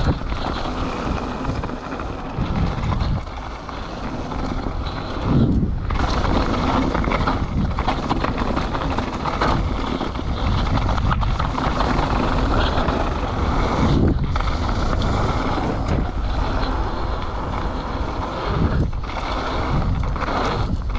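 Wind buffeting the microphone over the steady rumble of a mountain bike's tyres on a dirt downhill trail, ridden at speed.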